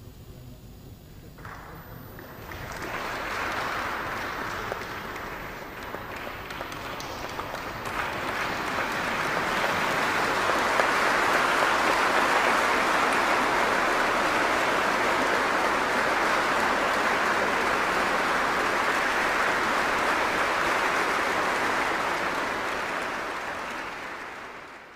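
Audience applauding, starting about two seconds in, growing to a steady sustained clapping, then dying away near the end.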